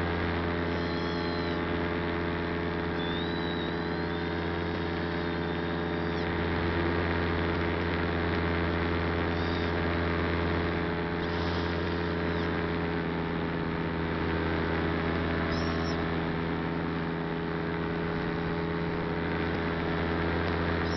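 Steady drone of the motor and propeller of the aircraft carrying the camera, heard onboard, holding one even pitch throughout.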